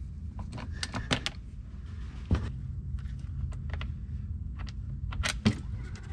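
Ratchet and 19 mm socket loosening the drain plug on a steel engine oil pan, then the plug being turned out by hand: scattered metallic clicks, with a few sharper knocks about two and five seconds in.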